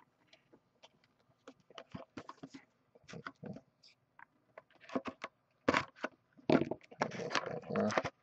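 Plastic shrink-wrap on a boxed card tin being slit with a small blade and torn off. Scattered light taps and scrapes of handling come first, then the crinkling grows denser and louder over the last couple of seconds.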